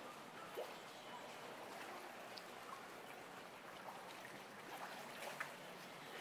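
Faint, steady river water moving and lapping at the bank, with a few soft clicks.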